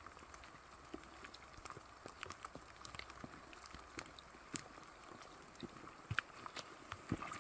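Rain falling on a forest trail: a faint steady hiss with scattered close raindrops ticking. Near the end a few sharper taps as trekking-pole tips and footsteps reach the rocks beside the microphone.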